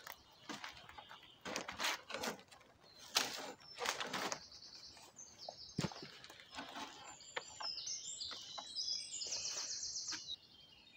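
Dead wooden poles knocking and clattering, with rustling, as they are laid as rafters onto a shelter's ridge pole. A songbird sings a run of quick high chirps in the second half.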